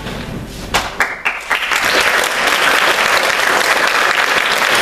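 Audience applauding: a few scattered claps about a second in, swelling into full, steady clapping.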